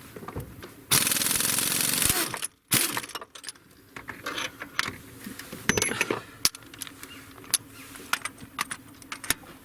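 Tool work on engine bolts: about a second in comes a loud burst of rapid mechanical rattling lasting about a second and a half, then scattered metallic clicks and clinks of wrenches and sockets on metal.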